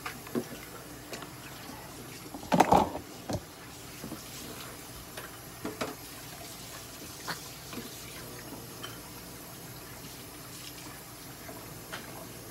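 Hand-held trigger spray bottle spritzing in a quick cluster of short bursts about two and a half seconds in, then only a few faint handling clicks.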